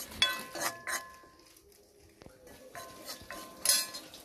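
Steel ladle scraping and clinking against a black iron kadai while stirring dry chilli and turmeric powder, which is being warmed in the pan to drive off its raw smell. The metal rings briefly with each stroke: several strokes in the first second, a pause, then more, the loudest a little before the end.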